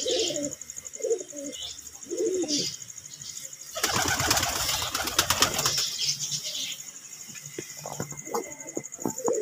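Domestic pigeons cooing in short low calls, then about four seconds in a loud rush of wing flapping lasting about two seconds as a pigeon flutters up, followed by a few light taps near the end.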